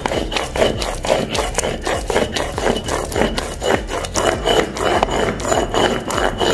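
Stone roller rubbing and scraping back and forth over a flat stone grinding slab (sil-batta), in repeated strokes, mashing peanut, green chili and onion into a coarse wet paste.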